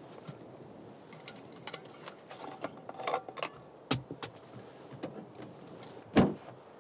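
A steel thermos flask and its cup being handled: a run of small clicks and rattles, a sharp click about four seconds in and a louder knock near the end.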